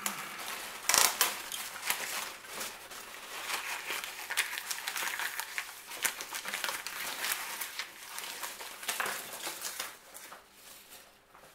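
Packaging around a mail-order orchid crinkling and rustling as it is handled and unwrapped, in a run of irregular crackles with the loudest about a second in, dying down near the end.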